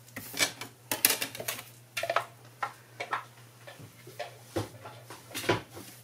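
Irregular clicks, knocks and rustles as a small white die-cutting machine and its clear plastic cutting plates are picked up and cleared off a wooden tabletop. The sharpest knocks come about a second in and near the end.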